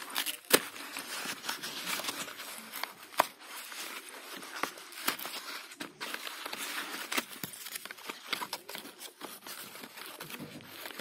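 Paper packet of slate pencils being torn and unfolded by hand: continuous crinkling rustle broken by many sharp clicks and snaps.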